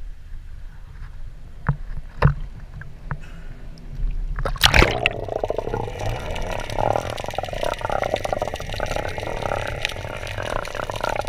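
Water lapping and splashing at a camera held at the surface, with a few sharp splashes, then a loud splash about four and a half seconds in as the camera goes under. After that comes the steady, muffled rushing and gurgling of water around the submerged camera's microphone.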